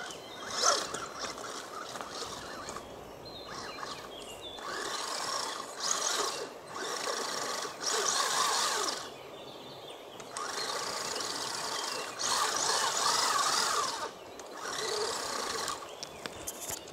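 Electric motor and gear drive of a Wltoys 12428-B 1/12-scale RC truck whirring in stop-start bursts of throttle, each a second or two long, as it drives over rocks. A sharp knock about a second in.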